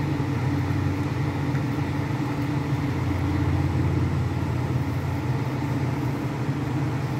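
Steady low droning hum of a running machine or motor, even in level throughout.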